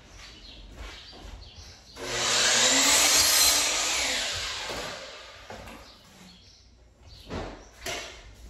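An electric power tool starts about two seconds in, runs loudly for about a second and a half, then winds down over the next couple of seconds. Two light knocks follow near the end.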